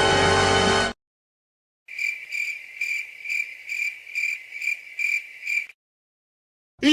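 Cricket-like insect chirping sound effect: an even run of high chirps, about two to three a second, lasting roughly four seconds. It follows the end of a music clip about a second in. Near the end a short sliding, voice-like sound begins.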